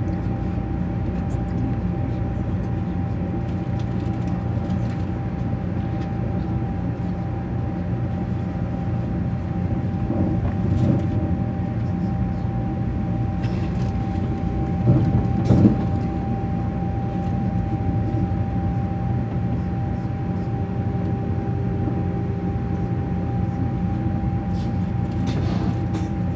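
ICE 3 high-speed train running at speed, heard from inside the passenger car: a steady low rumble of wheels on rail with a constant thin whine above it. A few brief louder bumps come in the middle.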